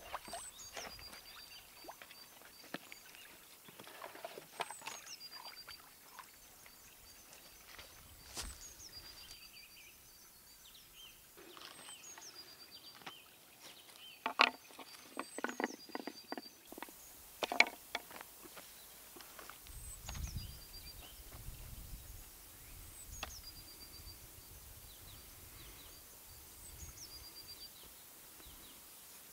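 A small bird repeats a short song every two to three seconds, a quick downward whistle followed by a few short high notes. Scattered rustles and a few sharp clicks and knocks come from hands handling gear in dry grass, the loudest knocks about halfway through.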